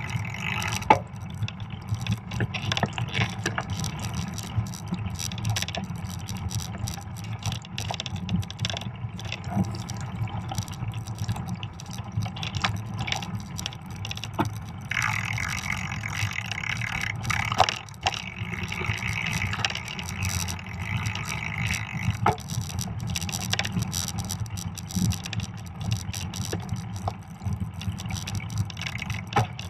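Fat bike riding over a snow-covered trail: a steady low rumble from the wide tyres rolling on snow and the ride itself, broken by frequent sharp clicks and rattles as the bike jolts over bumps.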